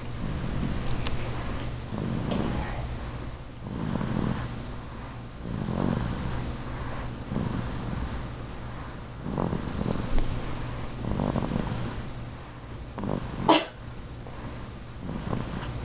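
Four-month-old baby snoring, a rasping snore on each breath about every two seconds. Near the end comes one sharper snort that rises in pitch and is the loudest sound.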